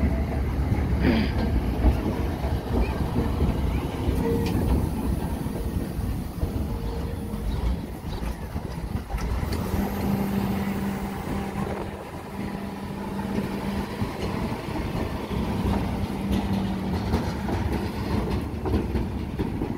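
Diesel engine of a road-rail excavator running as it travels along the railway track, hauling a flat wagon and trailer across the crossing.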